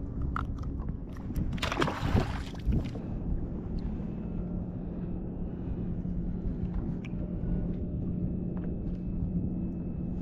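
Water sloshing and lapping against a kayak, with a loud splash about two seconds in. A steady low hum starts about three and a half seconds in and runs on.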